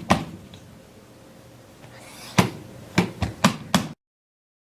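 A few sharp knocks and clicks of something being handled: one at the start, then five in quick succession over about a second and a half, after which the sound cuts out completely.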